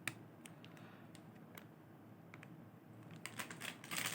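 Faint, scattered clicks and taps of hands handling small cardboard and plastic toy packaging, coming more often near the end.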